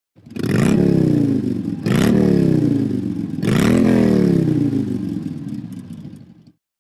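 Phone ringtone made of an engine-revving sound: three revs, each rising quickly in pitch and falling away slowly. The last rev trails off and the tone stops shortly before the end.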